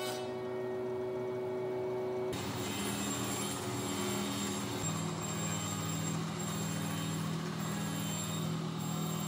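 A steady humming tone, cut off abruptly about two seconds in, then a Minimax SC 4 elite sliding table saw running steadily with a low hum as a board is pushed along its sliding carriage.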